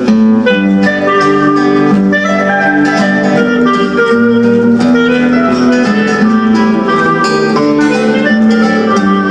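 Classical guitar and clarinet duo playing: plucked nylon-string guitar notes under held melody notes.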